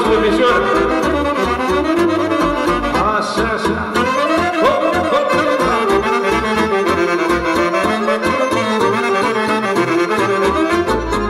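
Instrumental passage of Romanian folk-style band music, with no singing: melody instruments play over a steady beat in the bass.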